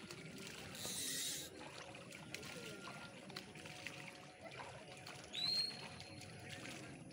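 Faint water sounds from a hooked catla swirling near the surface of a pond, with a brief hiss about a second in and a short high chirp about five and a half seconds in.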